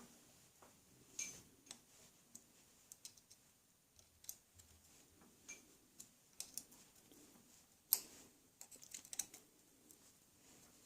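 Faint, scattered small metallic clicks and ticks from a 3 mm hex key working the jockey-wheel bolt out of a mountain bike's rear derailleur. A sharper click comes about eight seconds in, followed by a quick run of ticks.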